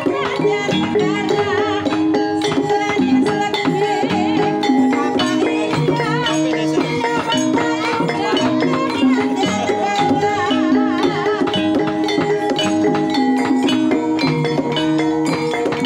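Javanese gamelan ensemble playing a Banyumasan gending: metal-keyed saron struck in a steady pattern with wooden mallets, over kendang drum and gongs. A sinden's wavering solo voice sings over it at times.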